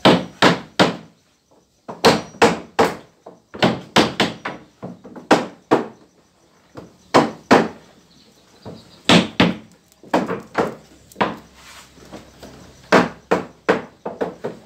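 Hammers striking nails into wooden floor planks: loud, sharp knocks in quick runs of three to five, with short pauses between runs.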